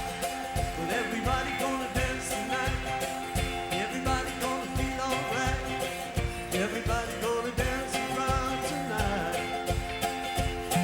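Live rock band music: a steady drumbeat about twice a second under held chords, with a lead line that slides up and down in pitch.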